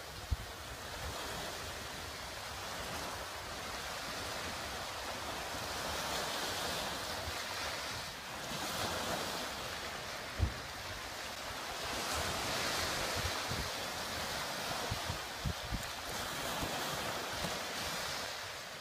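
Small harbour waves washing against a rocky shore: a steady hiss that swells and eases every few seconds. Wind on the microphone adds a few short low thumps, one sharp one about halfway through and two close together a few seconds later.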